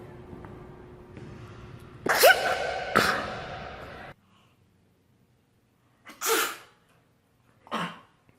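A woman sneezing: two loud sneezes about a second apart, the first with a short rising 'ah' before the burst. The background then cuts off suddenly, and two shorter sneezes follow about a second and a half apart.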